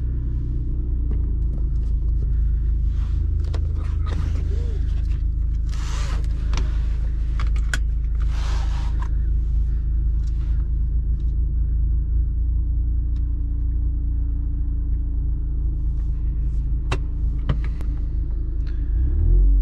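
A tuned SEAT Ibiza Cupra's turbocharged four-cylinder engine idling steadily, heard from inside the cabin. Clicks and rustles from handling a phone and pressing dashboard buttons come through in the middle, and the engine note rises briefly near the end.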